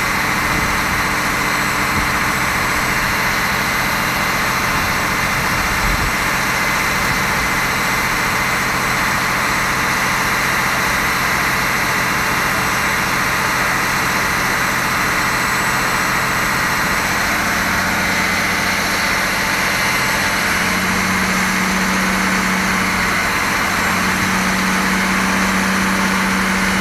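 Fire engine's engine running steadily under a constant hiss, its low note shifting a little past halfway.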